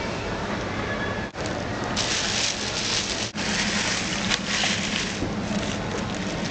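Steady background hiss with a low hum, in a supermarket produce aisle, briefly cutting out twice and hissing louder for a few seconds in the middle.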